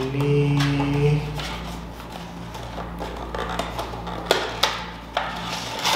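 Small cardboard box being handled and its flap picked open by hand: rustling with a few sharp clicks and taps in the second half.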